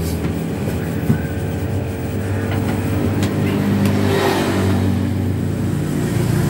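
Corded electric hair clippers running with a steady low buzz.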